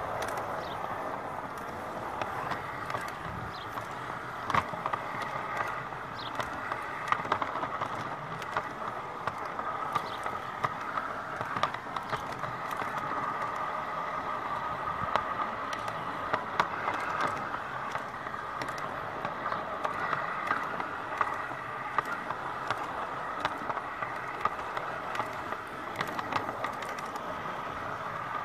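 G-gauge model train rolling along garden railway track, heard from the wagon it pushes: a steady whirring hum from the wheels and drive, with many irregular sharp clicks from the wheels on the rails.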